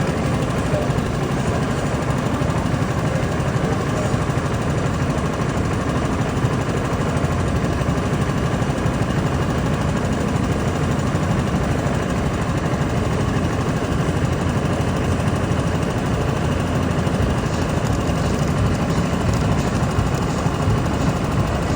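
A vehicle engine running steadily with a dense, even rumble.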